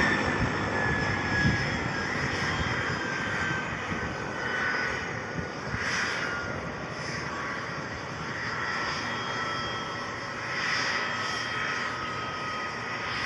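Helicopter flying: steady engine and rotor noise with a high whine that slowly falls in pitch, the sound easing off a little in the first few seconds.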